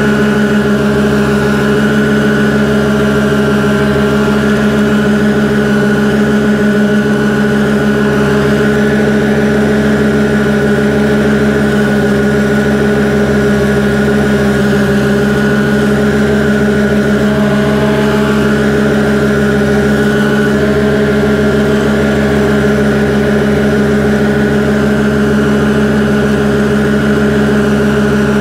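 Engine of a New Holland front-deck riding mower running at a steady speed while mowing grass, one unchanging drone.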